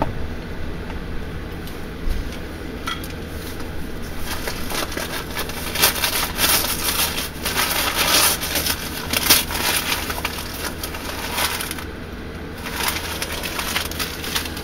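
Paper and cardboard packaging crinkling, rustling and tearing as a parcel is unwrapped by hand, an irregular crackle that is busiest in the middle stretch.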